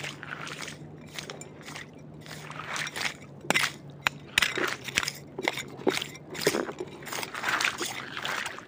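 Footsteps crunching and sloshing over wet ground and debris, about two steps a second, louder from about three seconds in.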